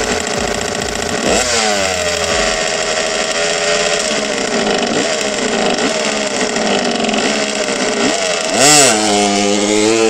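Honda CR250's two-stroke single-cylinder engine, freshly rebuilt with a Wiseco piston, idling and revved in short throttle blips, then a sharp rev about nine seconds in as the bike pulls away.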